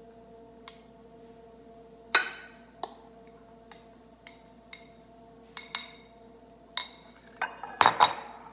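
Serving spoon clinking and knocking against a dish and plates as rice is dished out: about a dozen separate sharp, ringing clinks at irregular intervals, loudest about two seconds in, with a quick cluster near the end.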